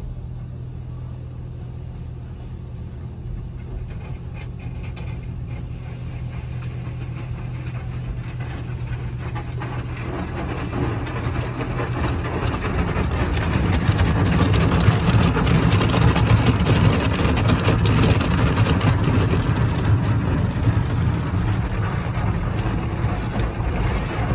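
Tunnel car wash scrubbing a car, heard from inside the cabin: Neoglide foam wraparound brushes, then a hanging strip curtain, swishing and slapping against the windshield and body amid water spray, over a steady low hum. The scrubbing grows louder from about halfway in.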